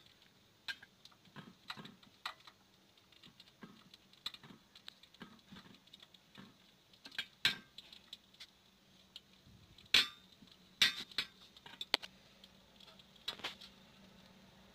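Chopsticks clicking and tapping against a metal bowl while stirring and coating a piece in batter: irregular light clicks, with a few louder knocks in the second half.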